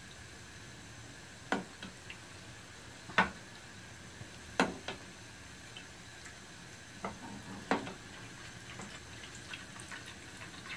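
Steel ladle clinking several times against the metal pans, a second or two apart, as hot oil is scooped out of the frying pan and poured and dripped into a small kadai, over a faint steady hiss from the frying chicken.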